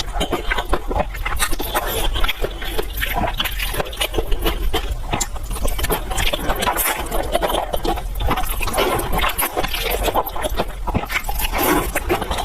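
A person eating close to the microphone: continuous chewing and wet mouth noises.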